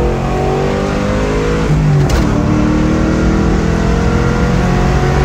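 A cammed 4.6 two-valve V8 in a Mustang GT accelerating hard, its revs climbing. About two seconds in there is a gear shift: the pitch drops with a short click, then climbs again under load.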